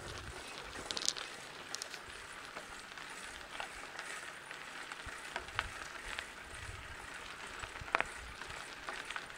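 Mountain bike tyres rolling over a dirt and gravel trail: a steady crackling hiss with scattered clicks and ticks, and wind rumbling on the microphone at times.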